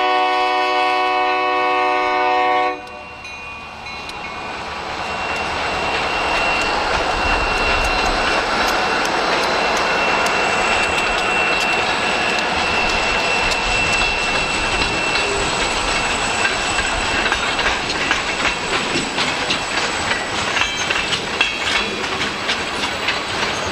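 Freight locomotive's air horn sounding a steady chord, cutting off sharply about three seconds in. A freight train of box cars and loaded wood cars then rumbles past the crossing, with a thin high squeal from the wheels and rail-joint clicks that come faster and thicker near the end.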